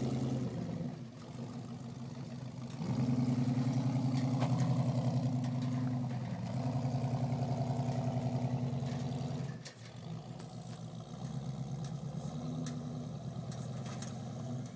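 Pickup truck engine climbing out of a mud hole and up a dirt slope, under heavy throttle from about three seconds in for about six seconds with a brief let-off midway, then dropping back to lighter throttle.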